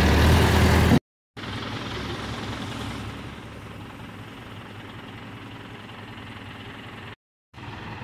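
Escorts Hydra 14 crane's diesel engine running steadily: loud and close for about the first second, then quieter while the crane holds a log aloft. The sound drops out briefly about a second in and again near the end.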